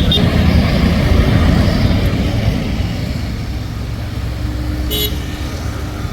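Low, steady vehicle rumble that slowly fades, with a short horn toot about five seconds in.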